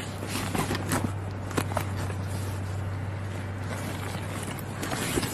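Clothes and a soft black bag being pressed and pushed by hand into a packed suitcase: rustling of fabric with a few soft knocks, over a steady low hum.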